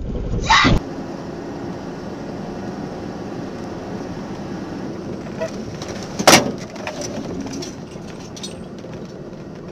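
Steady vehicle engine and road noise heard from inside a moving vehicle's cab. A short loud burst comes in the first second, and a single sharp knock about six seconds in.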